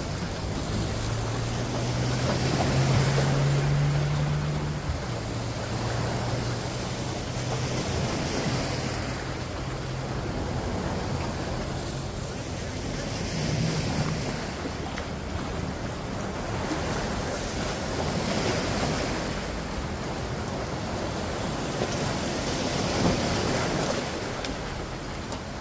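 Sea waves washing against rocks, surging about every four to five seconds, with wind on the microphone. A low steady hum sits under the waves for the first ten seconds or so, then fades.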